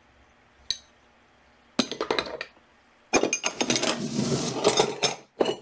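Antique steel wrenches clinking and clattering against one another as they are set down and picked out of a pile: a single click, a short clatter about two seconds in, then a long run of metal-on-metal clinking.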